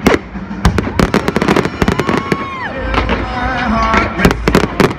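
Fireworks display: a rapid, irregular string of sharp bangs and crackles, with whistling tones in the middle, one gliding down in pitch.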